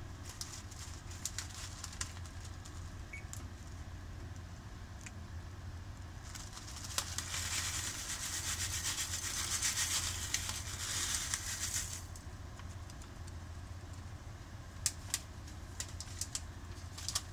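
Dry Baby Star Ramen snack noodles being poured from their bag into a stone-coated frying pan, a dry rush of falling noodle bits from about six to twelve seconds in, with scattered small ticks of single pieces landing before and after. A steady low hum runs underneath.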